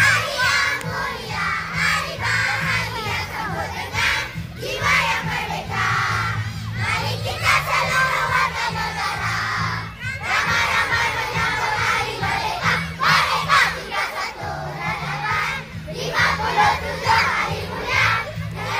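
Large crowd of schoolchildren shouting and cheering together, many voices overlapping.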